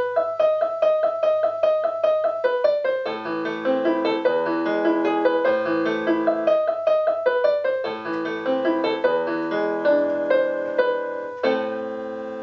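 Piano being played: a quick run of repeated single notes, filled out with lower chords after about three seconds, ending on a chord struck near the end that rings on and fades.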